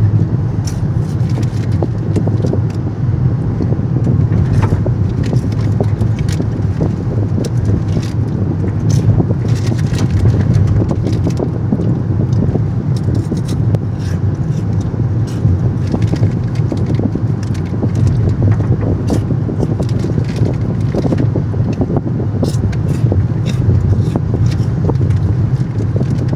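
Car cabin noise while driving on a rough, cracked and patched country road: a steady low rumble of tyres and engine, with frequent small clicks and rattles.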